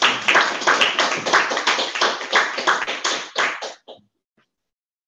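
A small audience applauding: a dense patter of hand claps that thins out and stops about four seconds in.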